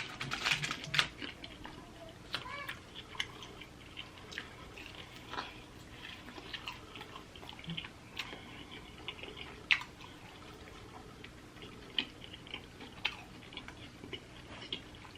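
A person chewing and biting food (pizza and chicken wings), with irregular soft mouth smacks and scattered sharp clicks.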